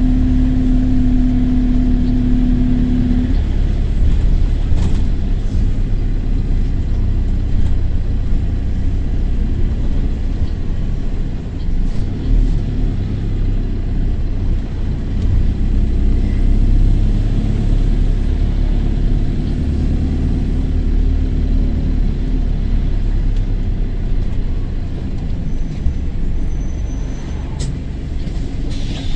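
London double-deck bus engine running as the bus drives along, a steady low rumble with a drone that fades about three seconds in. The exhaust has burst at the turbo.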